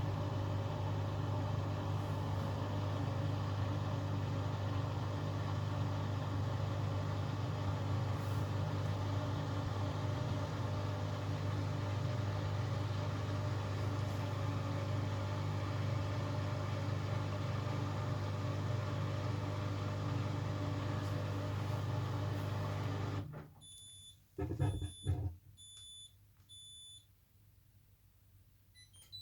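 Hoover Axi washing machine running with a steady hum that cuts off abruptly after about 23 seconds, followed by a couple of thumps and four short high beeps signalling that the programme has finished.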